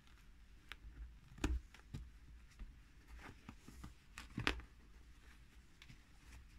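Tabletop handling noises as crafting tools are put down and picked up, scissors among them, with light clicks and fabric rustle. Two sharper knocks stand out, about a second and a half and four and a half seconds in.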